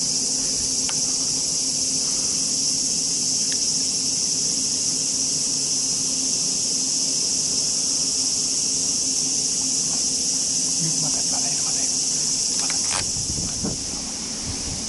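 Steady, high-pitched chorus of insects shrilling, with a few light clicks near the end.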